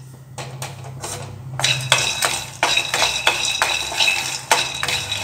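Peanuts being dry-roasted in a steel kadai and stirred with a wooden spatula: the nuts rattle and scrape against the metal, and the pan rings with each stroke. The stirring is lighter for the first second and a half, then quick and steady.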